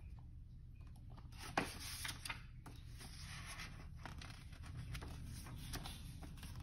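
Pages of a children's book being handled and leafed through: soft paper rustling with a few light clicks and taps, the sharpest about one and a half seconds in.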